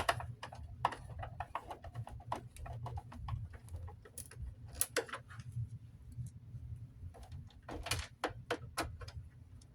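Screwdriver driving small screws into a plastic fan housing: irregular light clicks and ticks, over a steady low hum.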